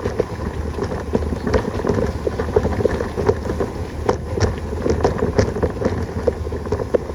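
Bicycle rolling fast over a rough dirt track, with a constant rattle and crackle of tyres and frame over stones and wind buffeting the microphone.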